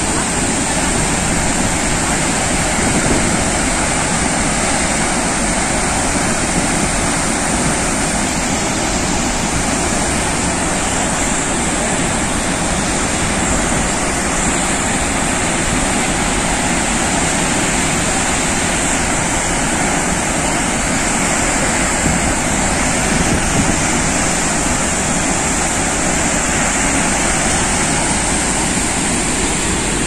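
Chitrakoot Falls on the Indravati River in heavy flood flow, a loud, steady rush of water pouring over the rock ledges and crashing into the pool below.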